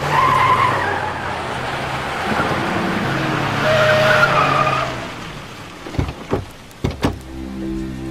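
An SUV drives in and skids to a stop, its tyres squealing over the engine noise for about five seconds. A few sharp clicks and knocks follow, as the car door opens.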